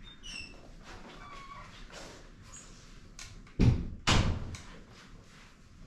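Drone charging cables and plastic connectors being handled and fitted, with light clicks and rustles. A little past the middle come two loud thuds about half a second apart, as of something knocked or set down on the wooden table.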